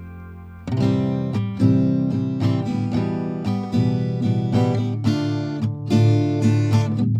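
Background music on acoustic guitar: a held chord fades out, then strummed and plucked playing starts under a second in and carries on.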